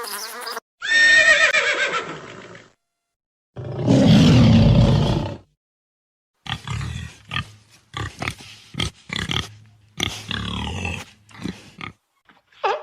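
Several different animal calls in quick succession: a pitched call about a second in, a loud harsh call near the middle, then a rapid run of short choppy calls to the end.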